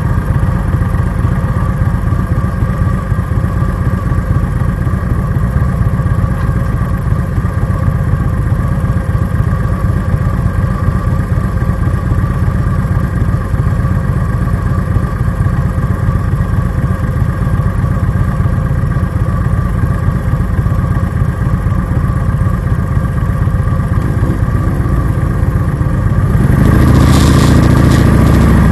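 2017 Harley-Davidson Dyna Low Rider S's V-twin idling steadily at a standstill. About two seconds before the end it is opened up and gets louder as the bike pulls away.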